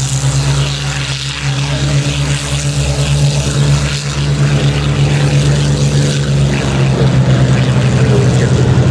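Four radial piston engines of a B-17 Flying Fortress, Wright R-1820 Cyclones, running with a loud, steady, low propeller drone at constant pitch.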